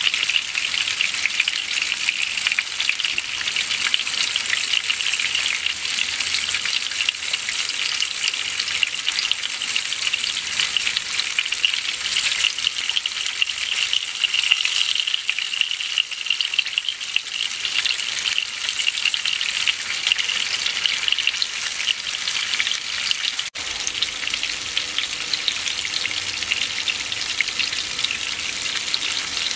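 Pieces of skin-on fish frying in hot oil in a pan: a steady, dense sizzle and crackle, with one momentary break about three-quarters of the way through.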